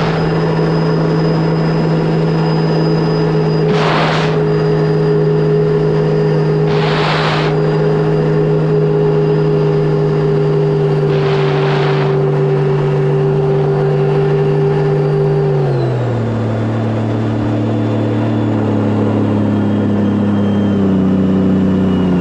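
Sea-Doo RXP-X 300 jet ski's supercharged Rotax three-cylinder engine running at a steady cruising speed, with a high whine over it, then easing off to lower revs about sixteen seconds in. Three short bursts of rushing noise break in over the engine.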